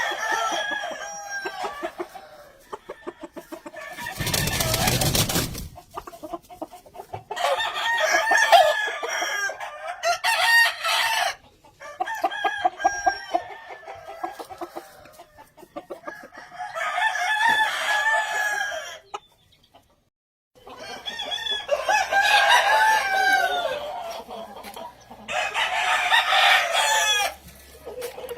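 Gamefowl roosters crowing in turn, one long drawn-out crow every few seconds, with clucking in between. A short loud rush of noise about four seconds in.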